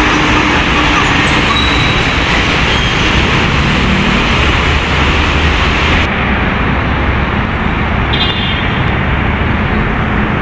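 Busy city road traffic: trucks, cars and motorcycles passing with a steady, loud mix of engine hum and tyre noise, including a tanker tractor-trailer truck rolling past in the first seconds. About six seconds in the sound changes abruptly to a duller traffic rumble, and a short high beep sounds a little after eight seconds.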